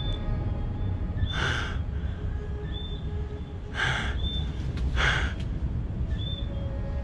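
Heavy, loud breaths, four in about seven seconds, each a short rush of air, over a steady low rumble.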